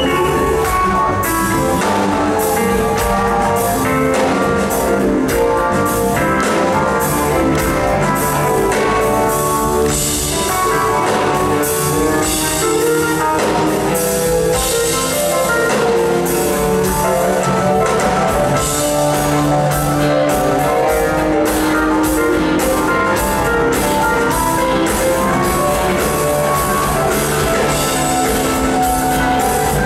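Live rock band playing, with drums, guitar and a prominent keyboard part.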